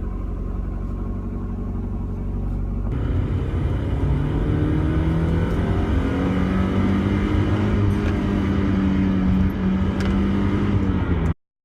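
1991 Mazda Miata's 1.6-litre four-cylinder engine running at a steady idle, then about three seconds in growing louder, with its pitch slowly rising as it accelerates. The sound cuts off abruptly near the end.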